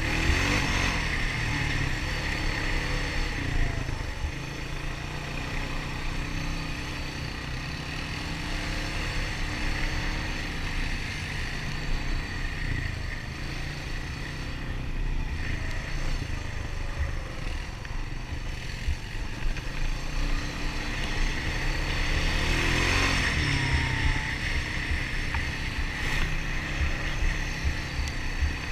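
Honda ATV engine running steadily on a trail ride, its pitch rising and falling with the throttle.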